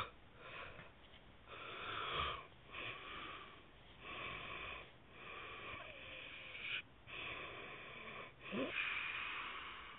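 A sleeping man snoring: rasping, wheezy breaths one after another, each lasting about a second, with short pauses between them. The uploader likens the sound to beans boiling.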